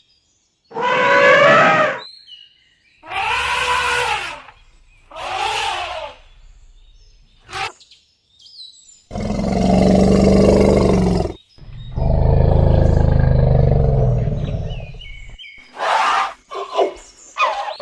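Elephants calling: several pitched trumpet calls that rise and fall, then two longer, lower roaring calls of two to three seconds each, then a few short calls near the end.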